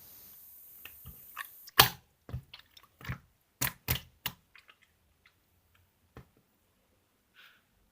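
Cheese-lemon slime being squished and pressed by hand, giving a series of sharp clicking pops that are loudest about two to four seconds in, then thin out to a few faint ticks. A steady hiss runs under the first couple of seconds.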